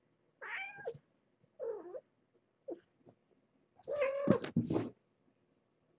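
Cat meowing loudly four times, a short call each second or so and then a longer, louder yowl, with two sharp knocks during the last one.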